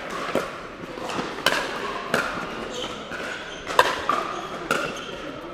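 A pickleball rally: paddles striking the plastic ball and the ball bouncing on the court, a quick, irregular run of sharp pops, about eight in all, each ringing briefly in the hall. The loudest hits come a little before four seconds in.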